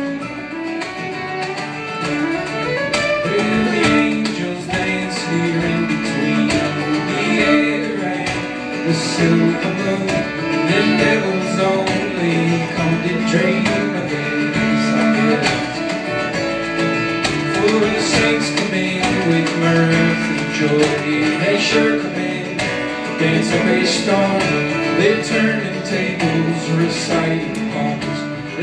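Acoustic string band playing a folk song live: strummed and picked acoustic guitar, fiddle and upright bass, with a steady pulse.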